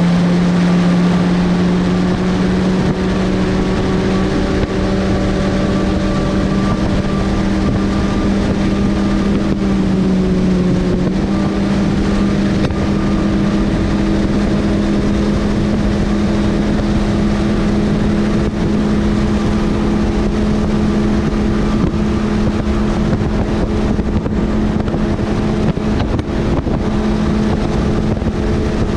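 300 hp Mercury outboard on a bass boat running hard at high throttle, a steady high drone with wind rushing over the microphone. The engine pitch dips briefly and climbs again about ten seconds in.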